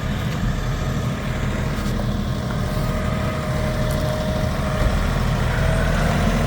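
A vehicle engine running steadily at low speed, a constant low drone.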